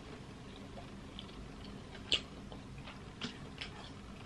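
Quiet close-up eating sounds: soft chewing with a few short clicks and smacks, the sharpest about two seconds in.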